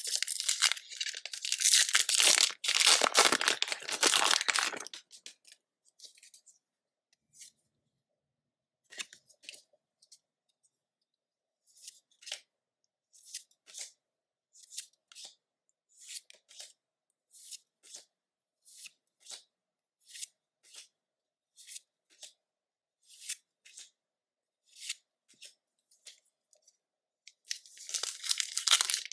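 Foil booster pack of Pokémon trading cards torn open, with loud crinkling for about the first five seconds. Then comes a run of soft, evenly spaced flicks, about two a second, as cards are slid off the stack one by one. Near the end, another foil wrapper starts crinkling.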